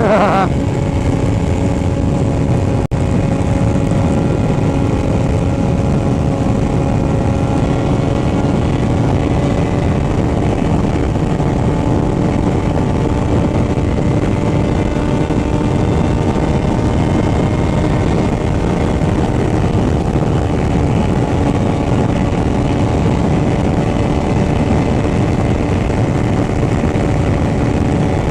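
Motorcycle engine with an aftermarket exhaust running at a steady cruising speed while riding, its pitch holding nearly constant with only slight rises and falls. The sound drops out for an instant about three seconds in.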